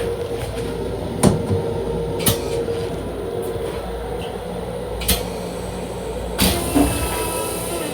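Interior running noise of a Long Island Rail Road M7 electric railcar: a steady rumble and hum, with sharp knocks about one, two and five seconds in, and a short hiss of air near the end.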